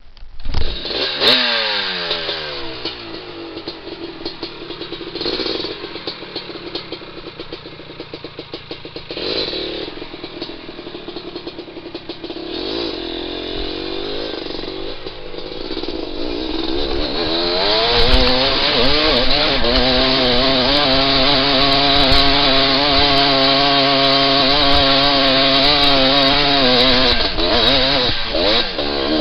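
Dirt bike engine coming in loudly and revving, then running at lower revs with a few blips of the throttle, then held at high revs under load from about two-thirds in as the bike climbs a steep, rocky hill.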